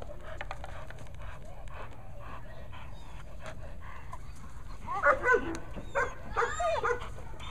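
German Shepherd gripping a bite sleeve, giving a run of high-pitched whines and yelps that bend up and down in pitch, starting about five seconds in, the loudest just after they begin.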